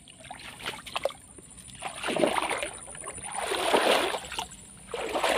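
Swamp water swished in three slow strokes about a second and a half apart, with a few light knocks and drips in the first second.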